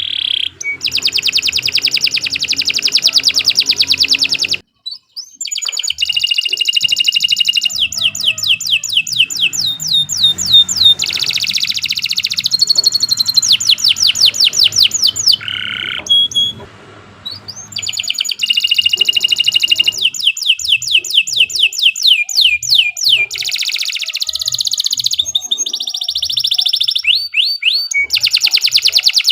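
Domestic canary singing a long, continuous song of fast trills, rapid repeated notes and sweeping glides, broken by short pauses about five and seventeen seconds in.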